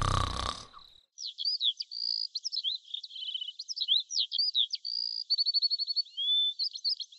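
Songbirds chirping: a string of quick, varied chirps, whistles and short trills, the morning birdsong. In the first second a low snoring rasp with a steady high tone fades out.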